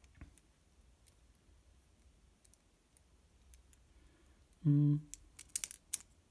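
A few faint clicks, then a quick cluster of sharp clicks about five and a half seconds in, from the Pentel PH158 multi-colour pencil being handled.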